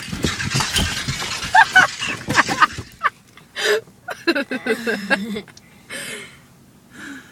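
Comic sound effects: a hissing, crash-like rush, then a string of short bursts and voice-like sliding sounds that die away near the end.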